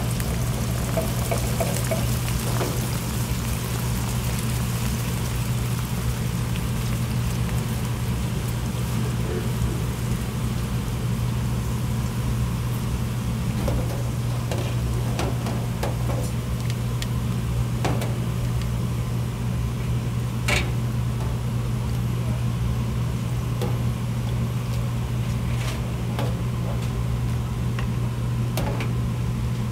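Steady low mechanical hum of kitchen equipment, with scattered clinks and knocks of cooking utensils; two sharper knocks stand out a little past the middle.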